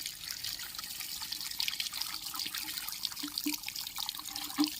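Water trickling and dripping steadily, with a few small plinking drops.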